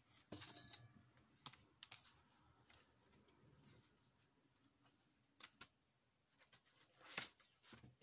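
Faint handling sounds of a large pop-up picture book: scattered soft clicks, taps and rustles as it is picked up and its stiff pages are turned.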